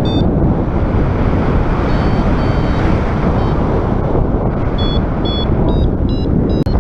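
Strong wind buffeting the microphone in a steady, heavy rumble. Faint short high beeps come and go through it, more often in the second half.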